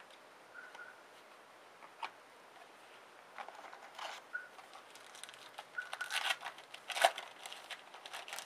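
Trading card packs being opened and handled: foil wrappers crinkling and cards rustling and sliding against each other in short scattered bursts, which get busier after about three seconds.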